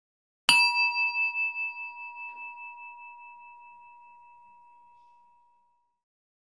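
Singing bowl struck once, ringing on with a wavering, pulsing tone that slowly fades away over about five seconds.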